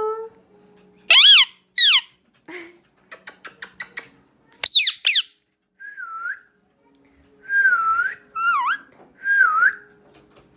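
Indian ringneck parakeet calling: loud arching screeches, a quick run of clicks, then several whistled notes that dip and rise again.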